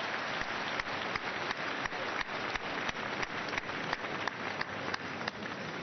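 Large congregation applauding, with the clapping falling into a steady shared beat of about three claps a second that eases off near the end.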